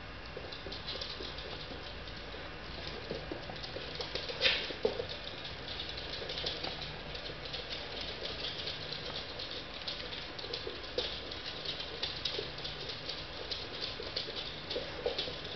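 Small dogs' claws clicking on a hard wood-look floor as they trot about, many quick irregular ticks, with one louder knock about four and a half seconds in.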